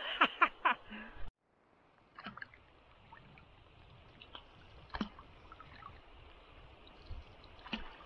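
A man laughs briefly. Then a canoe is paddled on a calm river in light rain: a faint, even patter of rain on the water with a few sharp clicks.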